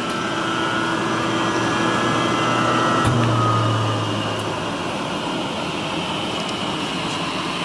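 American Rotary AD30 rotary phase converter's idler motor running with a steady hum, then a click about three seconds in as it is switched off with the stop button, after which a low hum fades out and the noise eases as the idler spins down.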